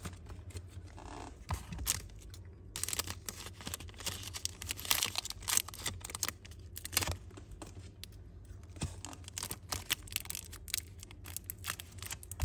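Close handling of Zippo lighters and their packaging: scattered clicks, taps and scraping with some rustling, over a steady low hum.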